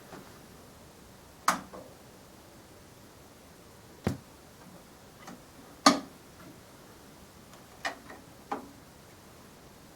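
Five sharp, irregularly spaced clicks and knocks from setting up and operating a Toshiba SR-F330 turntable, over a faint steady hiss, the loudest knock about six seconds in.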